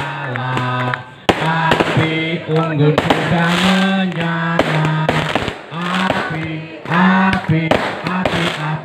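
Fireworks crackling and popping in many sharp cracks as they shower sparks, over music with long held notes.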